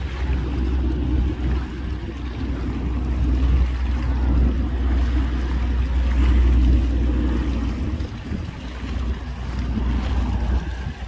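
Wind buffeting the microphone as a heavy low rumble, swelling in the middle and easing after about eight seconds.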